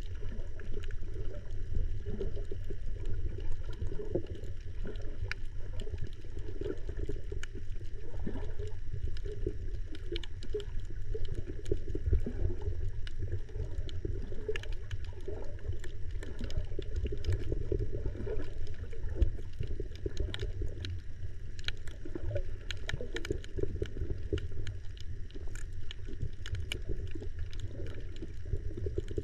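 Underwater ambience recorded with the camera submerged on a shallow coral reef: a steady muffled low rumble of water moving around the camera, with scattered crackling clicks throughout.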